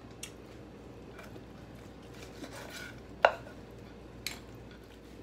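Kitchen knife slicing cooked tri-tip on a wooden cutting board: a few scattered sharp knocks of the blade against the wood, the loudest a little past three seconds in.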